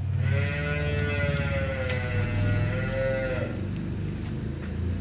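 A bovine on a dairy farm lowing: one long moo of about three seconds, wavering slightly in pitch, over a low rumble.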